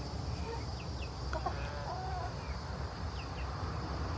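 Backyard hens giving a few soft, short calls, over a steady low rumble, with insects buzzing high and in pulses.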